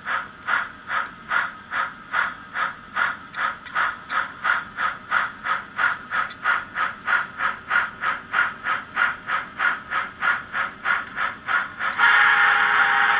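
Steam locomotive sound of a Baltimore & Ohio EM-1 2-8-8-4, from an added sound track: steady exhaust chuffs at about three a second. Near the end a louder steam whistle with several held tones cuts in suddenly.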